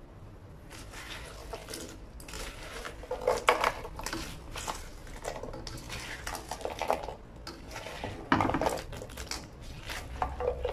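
Spatula scraping and clattering against a wok as sauce-coated fried chicken pieces are stirred and tossed: irregular strokes, with louder knocks about three and a half seconds in and again after about eight seconds.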